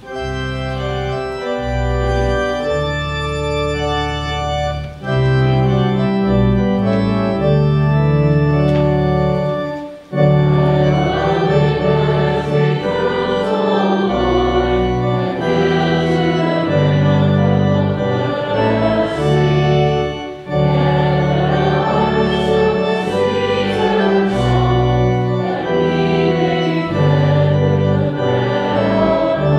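Church organ playing an offertory hymn in sustained chords over deep bass notes, with short breaks between phrases. From about ten seconds in, voices sing the hymn along with the organ.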